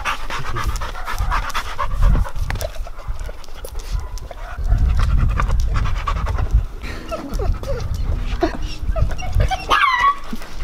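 Dogs panting hard right at the microphone, with scattered clicks and a short high squeal near the end.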